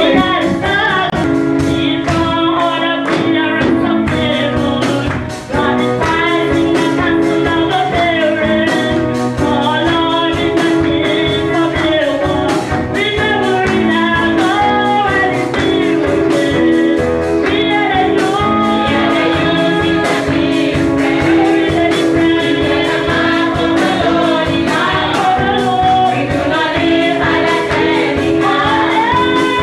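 A group of young women singing a gospel song together into microphones, with a steady beat behind them.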